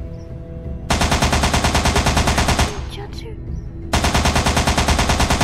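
Two long bursts of rapid automatic rifle fire: the first starts about a second in and runs nearly two seconds, the second starts about a second after it stops and carries on almost to the end.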